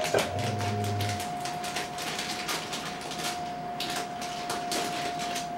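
Plastic snack pouch of Froot Loops Gummies crinkling and rustling as it is torn open and handled, in quick irregular crackles, over a faint steady whine.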